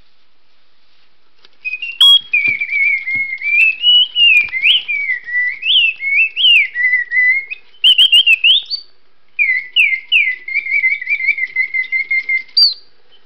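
Circa-1920 Karl Griesbaum singing bird automaton whistling its song, starting about a second and a half in after being switched on. It plays quick chirps and trills that slide up and down in pitch, with a short pause near the middle.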